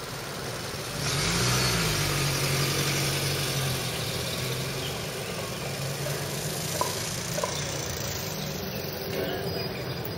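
A motor vehicle engine running close by, its low hum rising briefly in pitch about a second and a half in, over steady outdoor noise.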